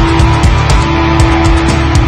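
Loud background music with a steady, fast beat.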